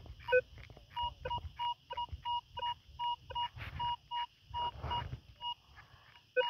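Minelab Vanquish metal detector giving a rapid string of short, shrill beeps, about three a second, as the coil is swept back and forth over a buried target reading about 19 to 21 on its display. A few beeps carry a lower second tone.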